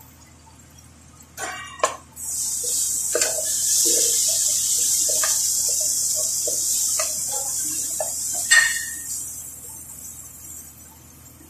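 Squid adobo sizzling loudly in a stainless steel pot while a wooden spatula stirs and scrapes through it, with a couple of knocks against the pot just before. The sizzle starts suddenly about two seconds in and fades near the end.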